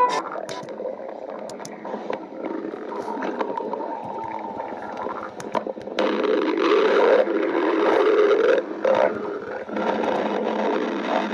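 Stomach growling: rough rumbling growls, quieter with a few small clicks at first, then a much louder, long growl from about six seconds in, a brief lull near nine seconds, and another loud growl after it.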